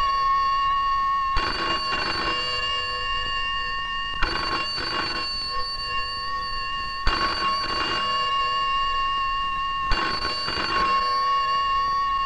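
Telephone bell ringing in the British double-ring pattern, a pair of rings about every three seconds, over a steady high tone. It sounds like the telephone call-out that alerts the rescue team.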